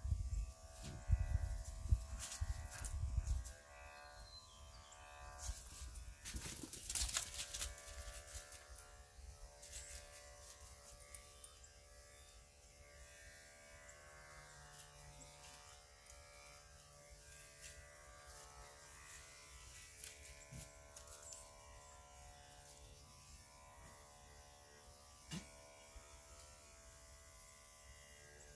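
Electric dog grooming clippers running with a steady buzz, with a few low rumbles and knocks in the first few seconds.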